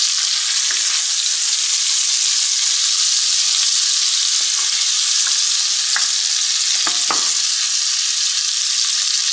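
Halved tomatoes and minced onion frying in bacon fat in a pan, a steady sizzle, with a couple of light knocks about six and seven seconds in.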